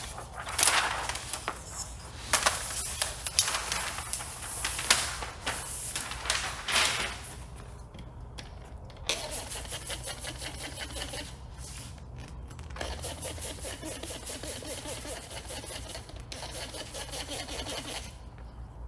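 Handheld trigger spray bottle squirting soap-and-water slip solution for paint protection film installation. There are several loud, separate hissing sprays in the first seven seconds, then a quicker, quieter run of rapid spritzes.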